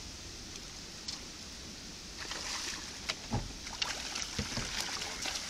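Water splashing and slapping in a quick irregular series from about two seconds in, over a steady rushing hiss of water.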